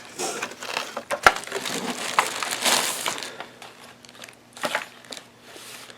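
Packaging being handled and opened during an unboxing: irregular rustling and crinkling with several sharp clicks, the loudest click about a second in, quieter after the midpoint.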